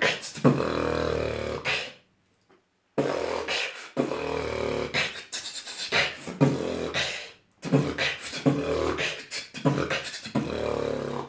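Vocal beatboxing: a low, pitched hummed bass sound laced with sharp mouth clicks and snare-like hits, in phrases broken by a silent pause of about a second roughly two seconds in and a brief break a little past halfway.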